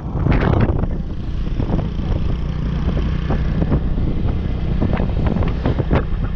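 A vehicle engine runs steadily on the move, with wind buffeting the microphone.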